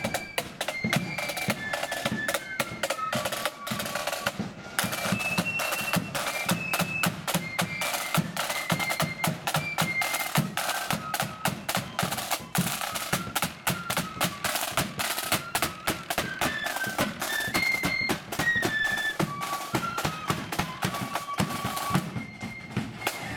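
Marching flute band playing live: flutes in unison carry a stepping melody over rapid snare-drum rolls and bass-drum beats. The snare drumming drops away just before the end while the flute note carries on.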